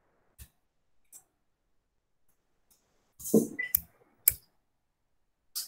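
Computer keyboard keys being pressed one at a time: a few separate clicks, then a quick cluster of keystrokes around three to four seconds in.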